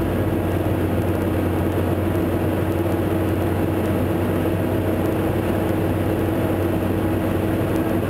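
John Deere tractor engine running steadily under working load while drilling a ploughed field, a constant droning hum with no change in pitch.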